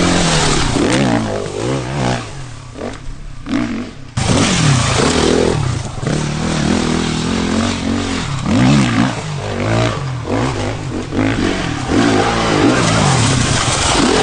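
Sherco 450 SEF-R dirt bike's single-cylinder four-stroke engine revving hard under acceleration off-road, its pitch rising and falling with the throttle. The sound drops back for a couple of seconds, then comes back abruptly louder about four seconds in.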